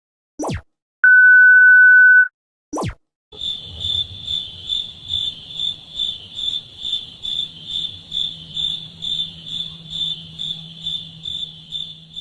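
A steady, high censor-style bleep lasting just over a second, set between two short clicks. It is followed by crickets chirping in an even pulsing rhythm, about three chirps a second: the stock 'awkward silence' meme effect.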